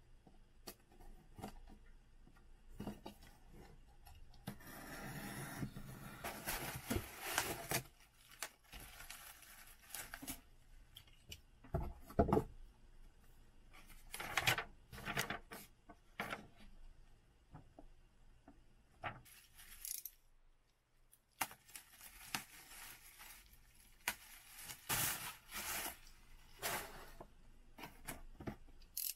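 Parcel being unpacked by hand: packing tape pulled and torn off a cardboard box, then paper and bubble-wrap packaging rustling and scraping in irregular spells, with scattered light knocks of cardboard.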